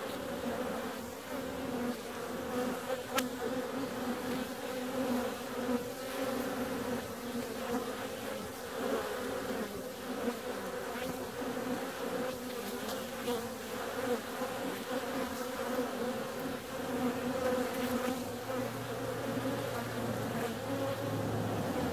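Many honeybees buzzing as they fly in and out of a hive entrance, a dense, steady, wavering buzz. A low steady hum joins near the end.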